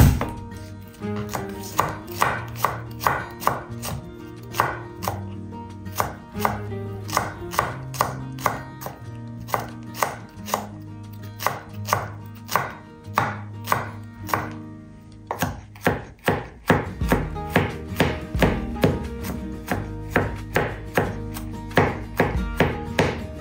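Chef's knife mincing garlic cloves on a bamboo cutting board: a steady run of sharp knocks, about two or three a second, that quicken and grow louder about two-thirds of the way through.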